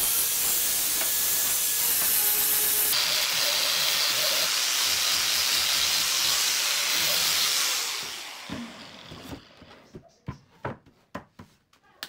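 Corded handheld disc sander running against pine wood: a loud, steady hiss with a faint motor whine that changes character about three seconds in, then winds down and stops about eight seconds in. A few sharp wooden knocks follow near the end as the sanded chair frame is handled.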